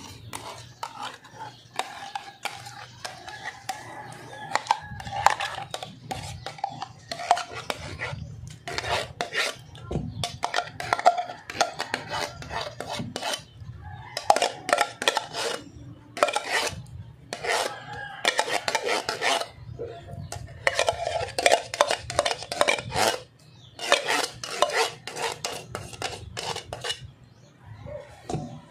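Metal spoon scraping thick chilled cream out of a tin can and clinking against the can rim and a stainless steel bowl, in irregular runs of scrapes and knocks.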